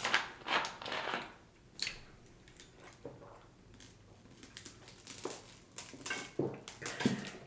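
Plastic water bottle crinkling and crackling as its cap is twisted off. After a quiet spell, more crackles of the thin plastic and swallowing sounds as the bottle is tipped up and drunk from.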